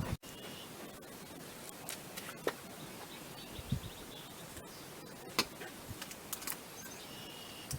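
Quiet background with a few faint, scattered taps and clicks from handling the screen and spline, and a faint high chirp near the start and again near the end.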